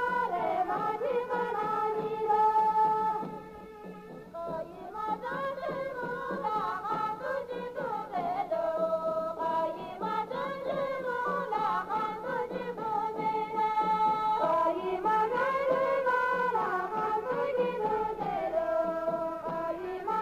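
A song with singing played from an FM station through the small built-in speaker of a Pagaria Walkie portable radio at its maximum volume, which is still not very loud.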